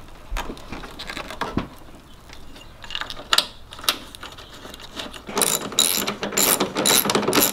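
Hand ratchet wrench clicking, tightening the battery hold-down bracket: a few scattered clicks and metal knocks at first, then fast, steady runs of ratchet clicks from about two-thirds of the way in.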